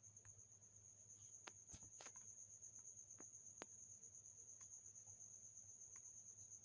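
Near silence: a faint, steady high-pitched whine over a low hum, with a few faint clicks between about one and a half and four seconds in.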